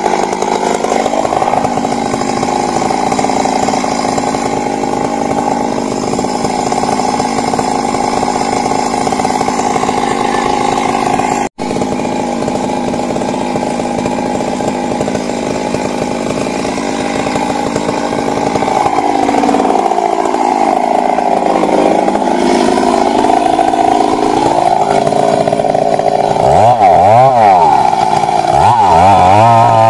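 Stihl MS 382 two-stroke chainsaw running hard while cutting into a large tree. Its pitch sags and recovers for a few seconds past the middle as the chain bogs in the wood, then wavers up and down near the end, with a brief dropout about a third of the way in.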